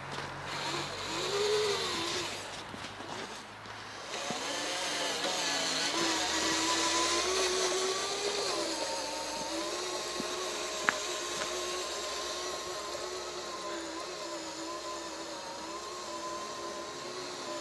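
Tamiya 1/14 scale RC semi truck running as it drives over snow, giving a steady, slightly wavering whine that grows louder about four seconds in, with a single sharp click near the middle.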